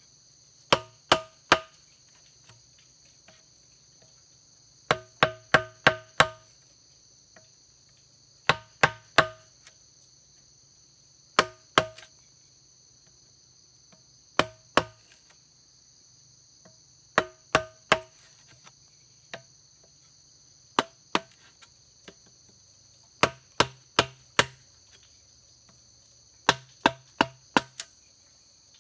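Wood-handled chisel struck with a wooden mallet, cutting a slot into a green bamboo pole: clusters of two to five sharp knocks, each with a short ring from the hollow tube, about every three seconds. Insects buzz steadily and high underneath.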